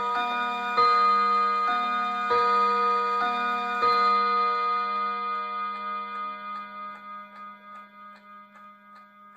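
Hermle mantel clock striking bim-bam on three chime rods: three bim-bam pairs of ringing rod tones, which then ring out and fade over several seconds. The ticking of the clock's floating balance movement is heard under the fading tones.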